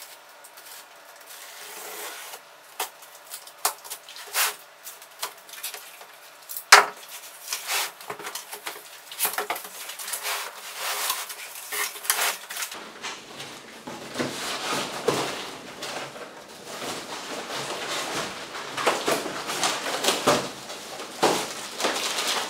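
Cardboard box and packaging being handled and unpacked: a string of knocks, clicks and rustling, with one sharp knock about seven seconds in, and steadier rustling and scraping from about halfway through.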